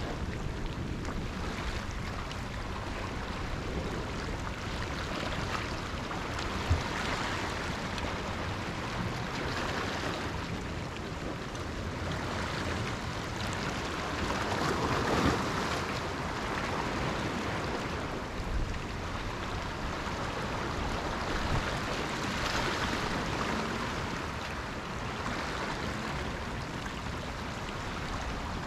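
Sea waves breaking and washing in, the surf swelling and easing every several seconds. A single brief thump about seven seconds in.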